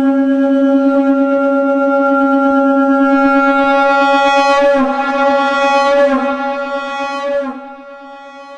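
Shankh (conch shell) sounded as one long, steady note pitched at C#, rich in overtones, wavering briefly in pitch about five seconds in and dropping away near the end.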